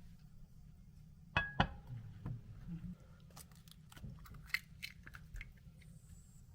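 Kitchen clatter: two sharp knocks, then a run of scattered light clicks and taps.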